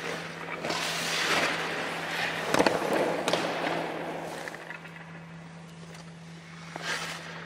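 Hockey goalie's skate blades and leg pads scraping across the ice in hard lateral pushes and butterfly slides, with two sharp knocks about two and a half and three seconds in.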